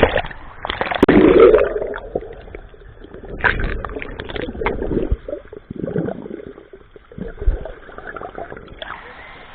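A loud splash about a second in, then muffled gurgling and sloshing of water close to the microphone.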